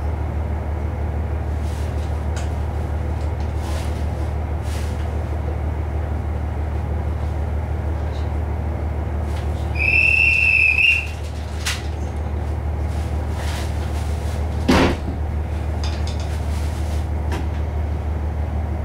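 KiHa 48 diesel railcar running with a steady low drone. About ten seconds in a high whistle sounds for just over a second, and a single sharp clunk follows a few seconds later.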